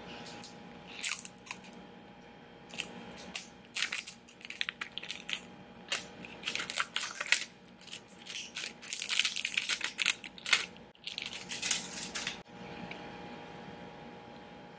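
Plastic shrink wrap being picked at, torn and peeled off a plastic pressed-powder compact: irregular crackling and crinkling that goes on for about twelve seconds, then dies down near the end.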